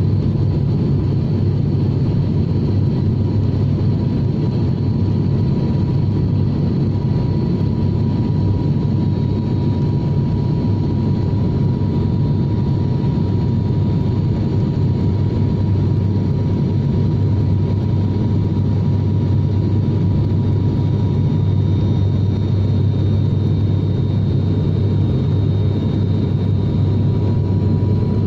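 Steady engine drone of a passenger airliner heard inside the cabin: an even low rumble with a faint steady whine above it, unchanging throughout.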